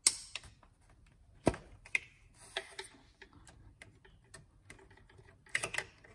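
Sharp plastic clicks and light taps as an ignition coil's electrical connector on a Porsche Cayenne 3.6 V6 is worked loose by hand, with a metal paint can opener used as a pry tool. The clicks are scattered, the loudest about a second and a half in, with a quick cluster of them near the end.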